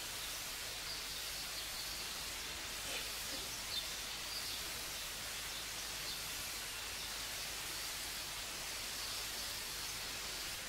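Steady hiss with a faint low hum, the background noise of an old recording during a pause in the talk, with a soft tick about four seconds in.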